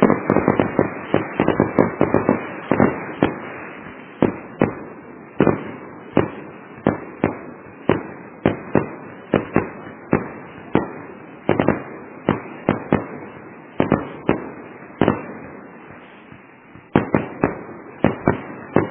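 Fireworks going off: a steady run of sharp bangs, a few a second, each with a short fading echo, over a continuous crackle. The bangs thin out and the crackle fades before a fresh cluster of bangs near the end.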